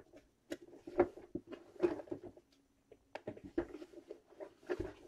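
Irregular soft knocks and clicks of something being handled, a few a second, loudest just at the end.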